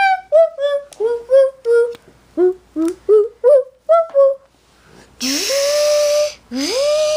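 A child's voice hums a quick run of about a dozen short notes, then makes two long mouth-sound whirrs for the toy claw. Each whirr slides up and then holds, with a breathy hiss over it.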